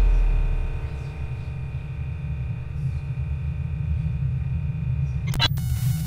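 Electronic sound design: a deep sub-bass boom fading out over the first second, then a low droning rumble with faint steady high tones. A little over five seconds in, a sharp click sets off a burst of harsh digital glitch noise.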